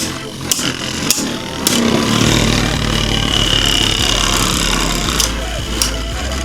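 Two Beyblade Burst spinning tops whirring against each other in a plastic stadium, with a thin high whine and several sharp clicks as they knock together.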